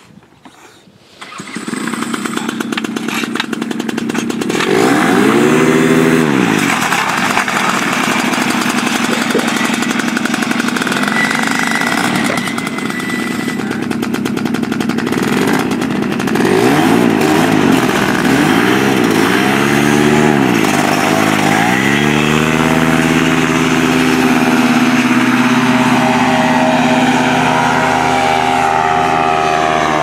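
Paramotor engine starts up about a second in and runs, revved up and down several times. From about two-thirds of the way through it is held at steady high power for the takeoff run and climb.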